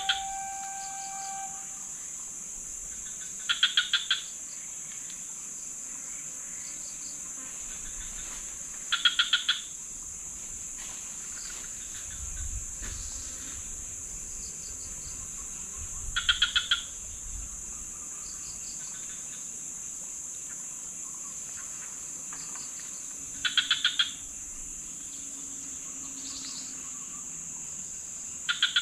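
Steady high-pitched drone of forest insects, broken every five to seven seconds by a loud, short rattle of rapid pulses from a calling animal.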